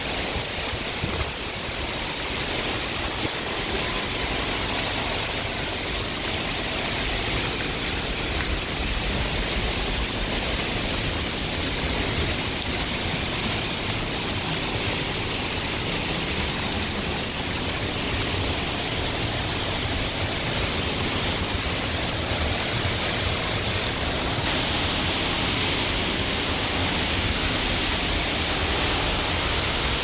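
Steady rushing roar of a large waterfall's falling water, growing a little louder and brighter near the end as the falls come closer.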